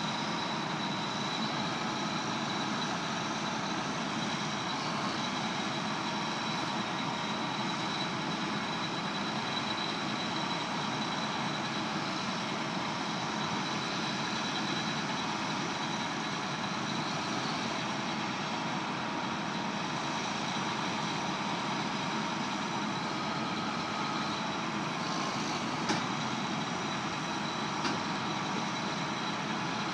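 Heavy diesel farm machinery running steadily while a high-dump wagon empties chopped ryegrass into a semi silage trailer, with a steady high whine through the engine noise. Two small knocks come near the end.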